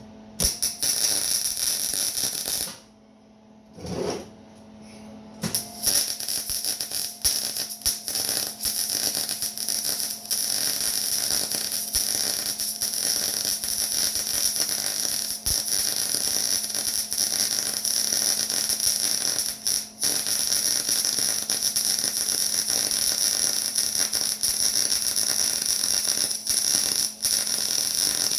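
Electric arc welding: the arc crackles and spits steadily. It stops briefly twice in the first few seconds, then runs as one long continuous weld.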